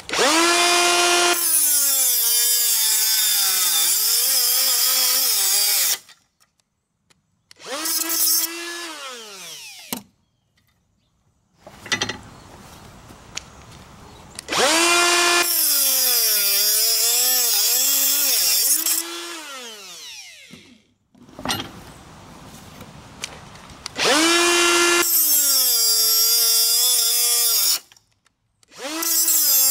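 Makita 18-volt cordless die grinder with a 3-inch metal cut-off wheel spinning up with a rising whine and then grinding through hardened padlock shackles, three cuts of several seconds each. Under load the motor pitch sags and wavers beneath a harsh hiss of grinding, and between cuts the grinder is briefly revved and winds down.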